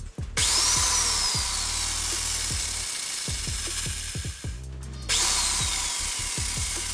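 Boda electric chainsaw run free with no wood: the motor and chain start suddenly with a whine that climbs and then slowly sags. It stops after about four seconds and starts again about five seconds in.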